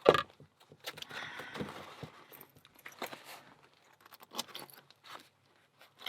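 Small metal clicks and rattles of a padlock being handled and put back together with thick rubber gloves: a string of separate sharp clicks with short scraping rattles between them.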